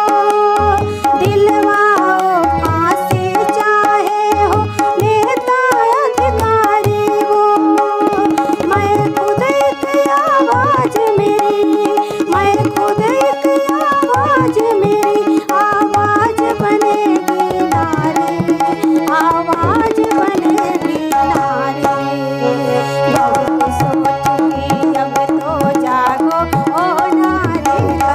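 Indian folk song with a woman singing lead over harmonium and tabla, another voice joining in. The harmonium holds steady notes under the voice while the tabla keeps an even beat.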